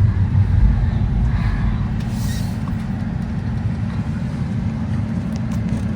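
Steady low road and tyre rumble inside a moving car's cabin.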